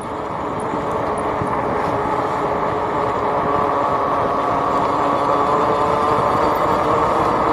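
Small motorbike engine running steadily at speed while riding, holding an even pitch and getting a little louder over the first couple of seconds.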